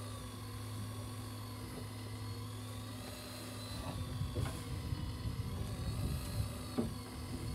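Electric fishing reel winding in a hooked fish under heavy load, its motor whine slowly rising and falling in pitch as the fish pulls against it, over a steady low hum. A few light knocks come in the second half.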